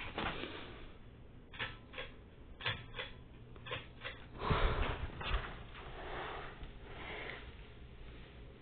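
Hampton Bay Huntington ceiling fan running on its medium speed, a faint steady whoosh in a small room, with a handful of short clicks and a louder rustling patch about four and a half seconds in.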